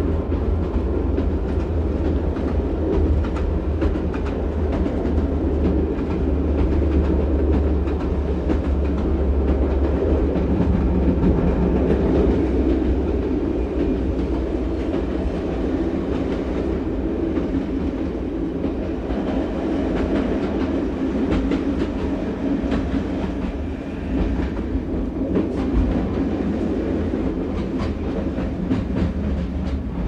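Diesel railcar running on the track as it arrives, a steady low rumble from its engine and wheels with repeated light clicks over the rails.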